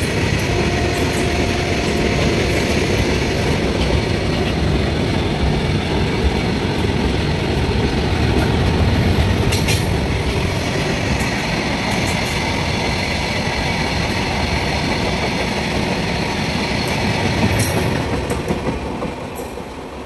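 Indian Railways goods train of open-top freight wagons rolling past close by: a steady heavy rumble with scattered clicks of wheels over rail joints. The noise dies away near the end as the last wagons pass.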